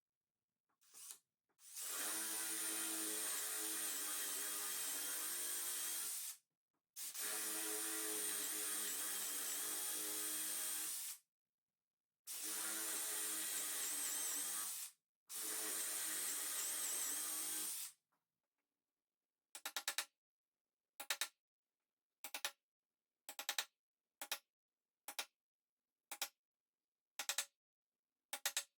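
Electric power tool running in four long runs of three to four seconds each, with brief stops between and a faint high motor whine over the noise. From about two-thirds of the way in, a regular series of short, evenly spaced sounds follows at about one a second.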